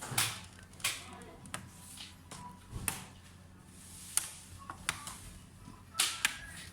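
Irregular sharp clicks and taps from hands working on a laptop's case and parts, about nine over several seconds.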